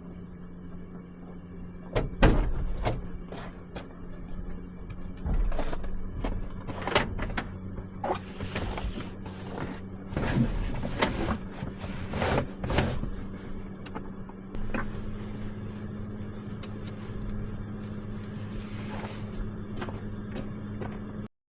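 Knocks, clicks and handling noises inside a van, over a steady low hum that steps slightly up in pitch about fifteen seconds in.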